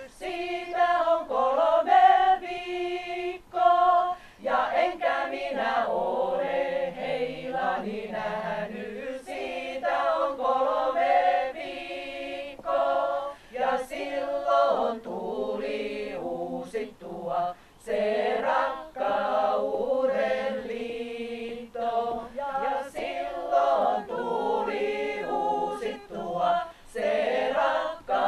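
Small women's folk-song ensemble singing a cappella, several voices in harmony.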